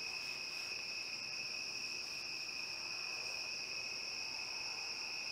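A chorus of crickets at night, trilling in one unbroken, steady high drone.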